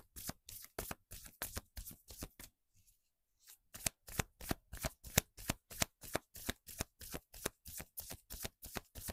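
A tarot deck being shuffled by hand: a steady run of quick card slaps, about four a second, with a brief pause about two and a half seconds in.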